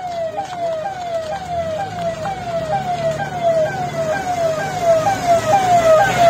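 An emergency vehicle's siren wailing in quick repeated falling sweeps, about two a second, over the low rumble of its engine. The vehicle is approaching and the siren grows louder toward the end.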